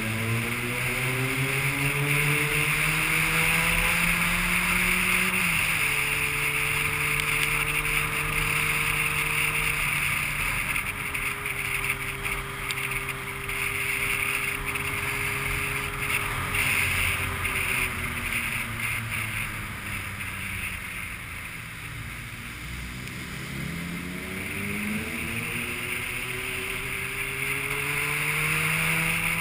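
A vehicle's engine revving up, dropping in pitch at a gear change about five seconds in, holding steady, then easing off and falling for several seconds before climbing again near the end. A steady hiss of wind or road noise runs underneath.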